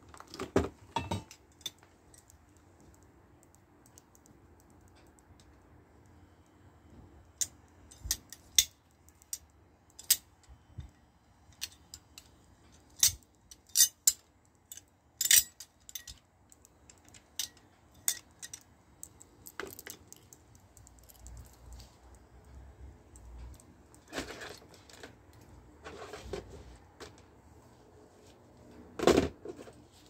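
Small metal and plastic gear clinking and knocking irregularly as it is handled and packed into a plastic tub, with a louder clunk near the end.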